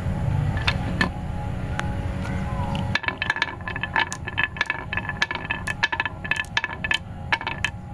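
Marbles rolling down a carved wooden rail and dropping into its pockets, clinking rapidly against each other and the wood from about three seconds in. Before that there is a steady low rumble with a few single knocks.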